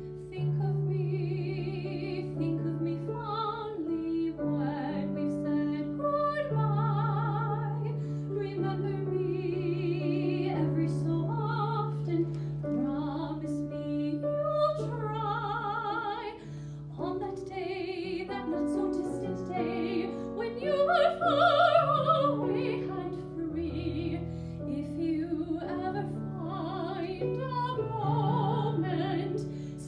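A woman singing a slow ballad in an operatic soprano style into a handheld microphone, with vibrato on held notes, accompanied by a grand piano.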